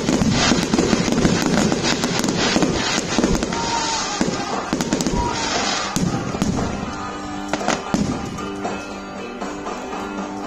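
Fireworks going off: dense crackling and popping with bangs, busiest in the first half and thinning out towards the end, with music playing underneath.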